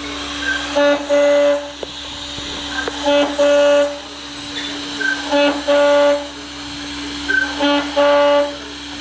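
Aluminium profile machining centre running with a steady motor tone, while its cutting tool repeatedly bites into the profile: about every two and a half seconds comes a loud pitched whine in two parts, a short one then a longer one, with a few clicks between the cuts.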